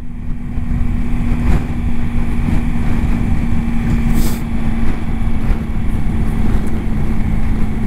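Triumph Tiger adventure motorcycle's engine running at a steady pace on the move, its note holding even, with wind rumbling on the bike-mounted microphone. A brief hiss comes about four seconds in.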